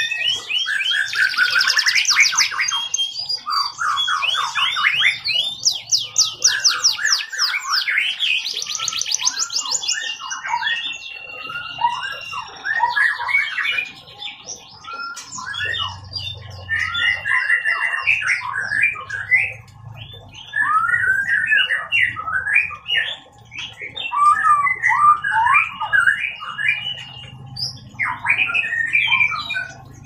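Domestic canary singing a long, vigorous song of rapid trills and rolling phrases mixed with held whistled notes, with a few short pauses.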